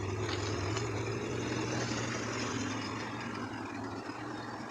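1987 Chevrolet Corvette C4's 5.7 L V8 engine running steadily at idle, easing slightly in the last second.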